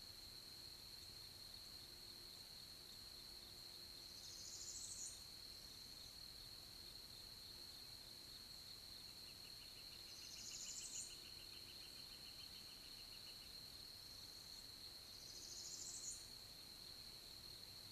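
Faint outdoor ambience with a steady high-pitched hum, over which a small songbird sings a rising buzzy song three times, about six seconds apart. A quieter, rapid trill of even notes runs for a few seconds in the middle.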